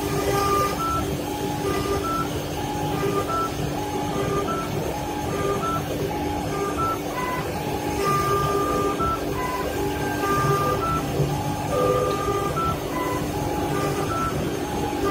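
CNC wood lathe running, its spinning brush-sanding head working a turned wooden baluster: a steady machine hum under a continuous rushing noise. Over it, a simple electronic tune of short beeping notes plays on and off.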